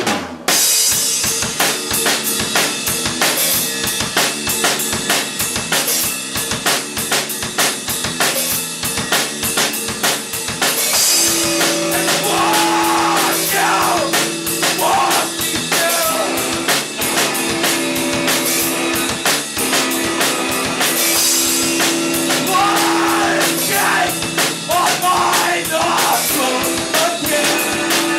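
A live rock band playing a song: drum kit keeping a fast, even beat under electric guitars, with a bending melody line coming in on top about eleven seconds in.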